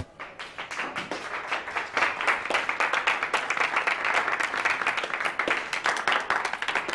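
Audience applauding a finished dance: many hands clapping, swelling over the first two seconds and then holding steady.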